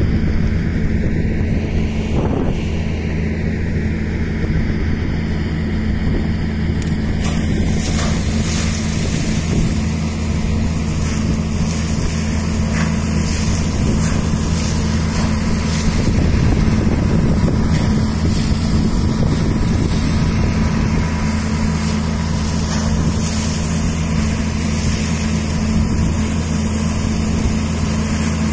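An engine running steadily, a constant low drone, over a continuous rushing hiss that grows brighter about seven seconds in.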